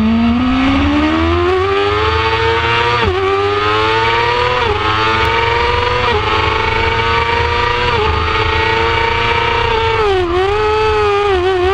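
2006 Yamaha R6's inline-four engine at full throttle on track, its pitch climbing and dropping back sharply with each of four quick upshifts. Near the end the pitch falls and jumps in short steps as the rider brakes and changes down.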